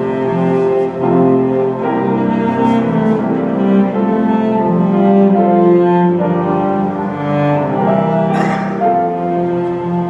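Orchestra playing, with bowed strings to the fore: cellos and double basses in long held notes.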